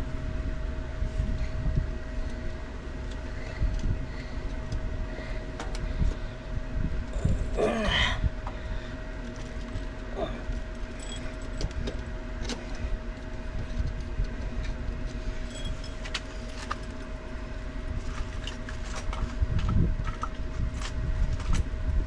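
Hand tools clinking and ticking against metal fittings while the ground wire is worked loose from its lug on a pool pump, over a steady low rumble and a constant hum.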